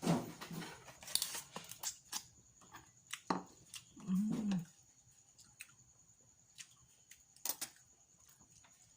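Eating boiled crab by hand: scattered sharp clicks and cracks of the shell being broken and picked at. A short hummed 'mmm' comes about four seconds in.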